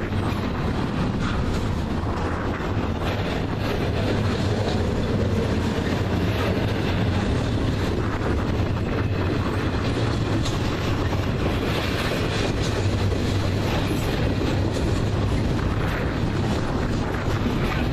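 Slow intermodal freight train rolling past, a steady rumble with its wheels clicking over the rail joints.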